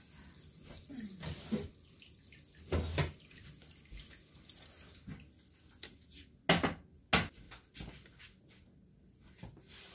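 Kitchen handling noises: a few sharp knocks and clatters as loaf pans and utensils are moved and set down, the loudest about six and a half and seven seconds in, over a faint steady hiss like a running tap.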